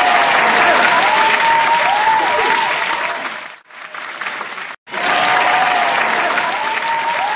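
Crowd applause, a dense steady clapping with rising and falling whistle-like calls over it. It fades out about three and a half seconds in, breaks off, and starts over about five seconds in with the same pattern, a looped recording.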